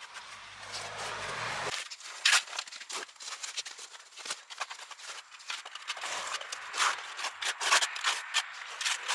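Irregular, quick scraping strokes of a tool dragging wet cement grout mortar across natural stone paving slabs, working it into the joints. A low steady hum runs underneath at first and stops abruptly under two seconds in.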